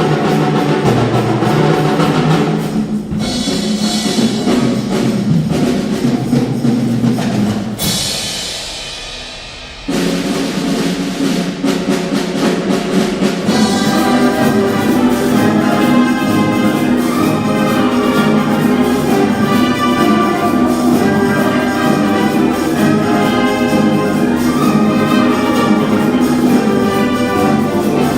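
Wind band playing, with brass and percussion including timpani. About eight seconds in a crash rings out and fades, and about two seconds later the full band comes back in.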